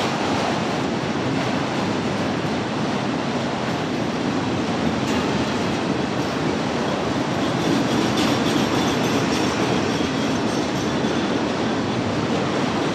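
A freight train of autorack cars rolling past, its wheels on the rail making a steady, unbroken rolling noise.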